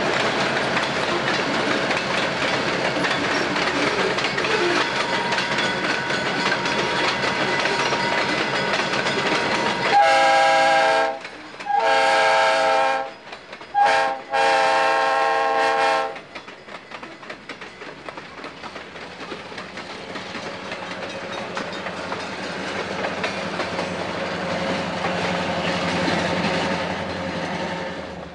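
First-generation diesel road-switcher locomotive running alongside with its freight cars, then about ten seconds in its air horn sounds the grade-crossing signal: long, long, short, long. Afterwards the locomotive and cars keep rumbling along the rails, growing louder until the sound cuts off at the end.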